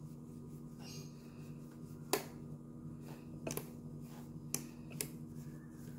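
Cloth wiping over a plastic wall switchboard, with four sharp clicks spread over a few seconds as the rocker switches are pressed under the cloth, over a steady low hum.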